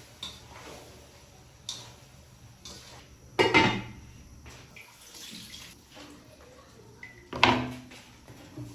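Dishes and pots being handled, with water: small clinks and knocks, and two louder clattering knocks about three and a half and seven and a half seconds in.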